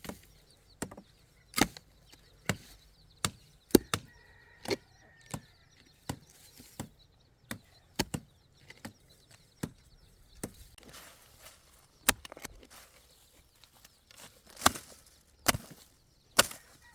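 Chopping by hand: a run of sharp single strikes, roughly one a second, with a short pause about ten seconds in before the strikes resume.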